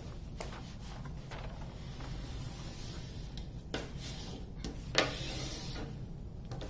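Paper cover sheet being laid back over a diamond painting canvas and smoothed by hand: rustling and rubbing of the sheet, with a sharp tap about five seconds in.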